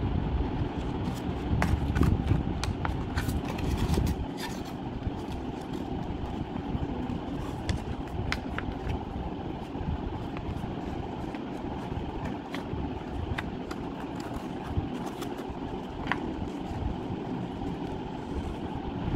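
A sheet of paper being folded and creased by hand: scattered short crinkles and taps over a steady low background rumble, which is heavier in the first few seconds.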